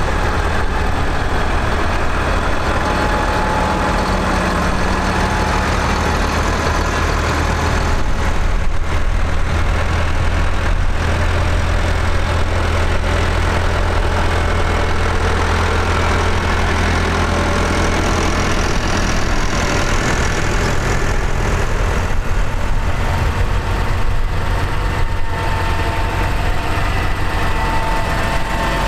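Diesel engines of a procession of Massey Ferguson tractors running at low revs as they drive slowly past one after another, a steady low engine drone.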